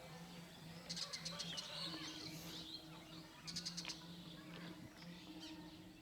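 Birds chirping, with two quick high trills about one and three and a half seconds in, over a faint low hum.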